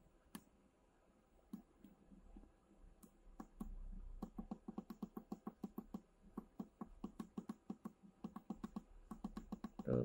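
Fast runs of short clicks, about four a second, from the buttons of the bird incubator's digital temperature controller. They start about three and a half seconds in, with a short break midway, as the set temperature is stepped up toward 33 degrees.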